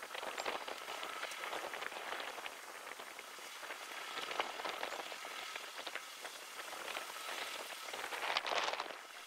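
A John Deere 6125R tractor ploughing stubble with a four-furrow reversible plough, heard as a steady crackling hiss of soil and stubble with a faint whine, swelling briefly near the end.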